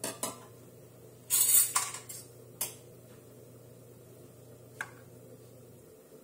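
Kitchen dishes and utensils being handled: a few sharp clinks and a louder clattering scrape about a second and a half in, then single clinks. A low steady hum sits underneath and stops near the end.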